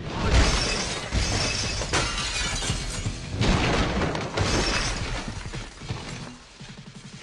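Repeated crashing and shattering, like things being smashed, in several loud surges that die away near the end.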